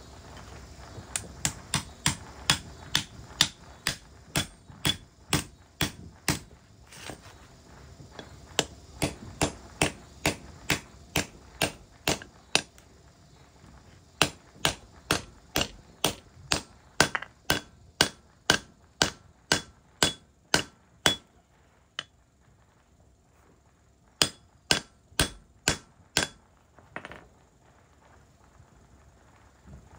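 Hammer striking a sterndrive drive shaft's universal joint as it is reassembled. The blows are sharp, about three a second, in four runs with short pauses between.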